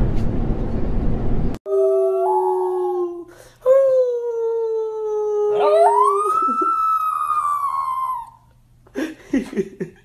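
About a second and a half of subway car rumble, then a small shih tzu-type dog howling: long drawn-out howls, the last rising and then slowly falling. A few short whines follow near the end.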